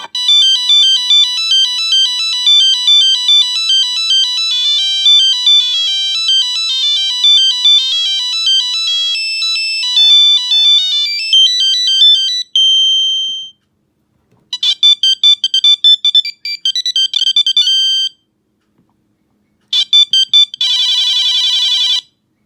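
Electronic phone ringtones from the Pixel Experience set. A fast, high, beeping melody runs for about twelve seconds and ends on a held note. After a pause come short clusters of quick notes, and near the end a brief burst followed by a fast warbling trill like a phone ring.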